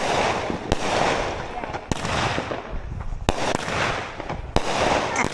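Consumer fireworks firing shot after shot: four sharp bangs about a second and a half apart, each followed by a crackling hiss that fades over about a second.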